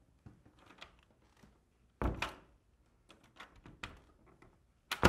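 A wooden door being handled: light clicks and rattles of its knob, with two heavy thuds, one about two seconds in and a louder one at the end.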